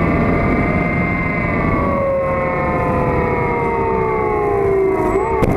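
Electric motor and propeller of an RC float plane whining as it taxis on the water, the pitch sliding slowly down as the throttle eases. About five seconds in there is a quick rise and fall in pitch, a brief throttle blip, over a low rushing noise throughout.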